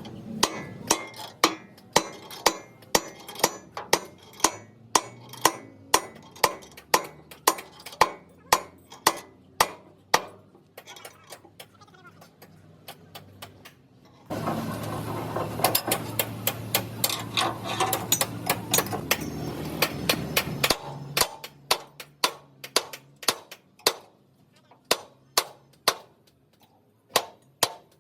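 Hammer blows on steel, about two a second and ringing briefly, as a truck chassis frame is worked by hand. About halfway through, a louder steady rushing noise takes over for several seconds, then the blows resume more unevenly.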